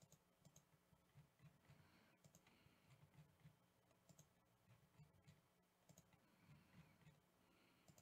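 Faint computer mouse clicks at irregular intervals, over near silence: a button being clicked over and over to reshuffle a list.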